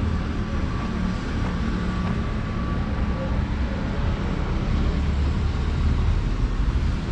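Town street ambience: a steady low rumble of passing traffic.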